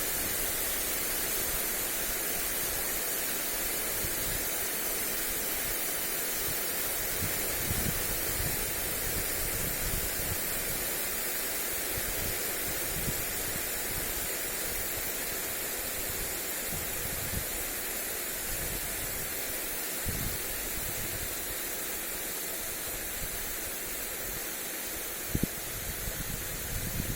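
Lawn sprinkler spraying water onto grass: a steady, even hiss, with brief low gusts of wind on the microphone now and then.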